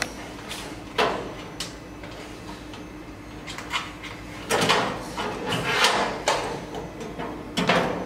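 Steel locker-cabinet doors and latches being handled: a series of metal knocks and clicks at uneven gaps, the loudest coming about halfway through and again near the end.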